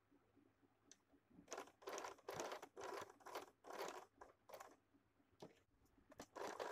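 Faint rustling and crinkling of cloth being handled and smoothed by hand, in a run of short bursts about half a second apart, with a few fainter ones near the end.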